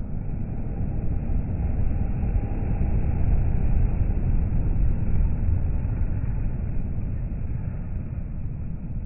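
Volvo FH lorry with a box trailer passing at motorway speed: a deep engine and tyre rumble that swells to its loudest about four seconds in as it goes by, then fades.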